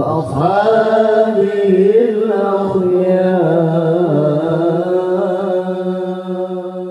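A man's voice reciting the Quran in the melodic tilawah style, amplified through a hand microphone. He holds long, ornamented notes that bend slowly up and down in pitch.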